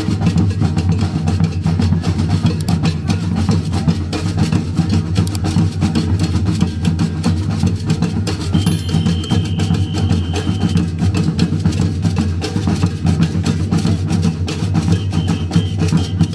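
Street percussion band playing a dense, driving rhythm: deep bass drums, rattling snare drums and shaken beaded gourds, going steadily throughout.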